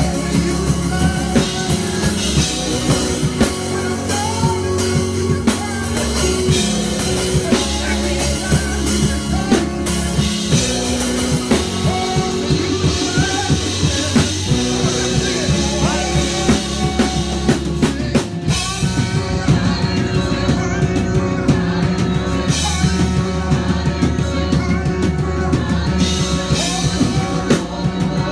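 Live gospel praise-and-worship band playing: organ chords over a drum kit keeping a steady beat, with a brief break in the low end about two-thirds of the way through.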